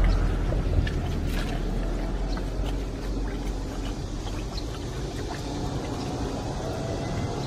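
Mini pig with its snout in a tub of ice water, sloshing the water and crunching ice, heard as scattered small clicks and splashes. A steady low rumble runs underneath and is the loudest part.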